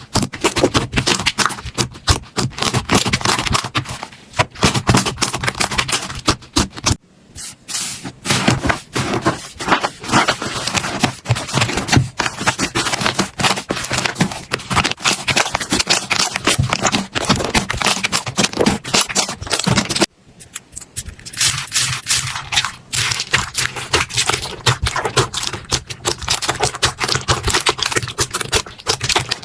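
Slime being squeezed and pressed by hands, giving dense crackling and clicking pops. The sound breaks off briefly twice, about 7 and 20 seconds in, then carries on.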